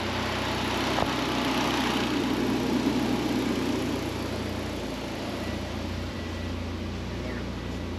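Mitsubishi Lancer Evolution X's turbocharged 4B11 four-cylinder idling on a chassis dyno, with a steady rush of air over a low hum; it eases slightly about four to five seconds in.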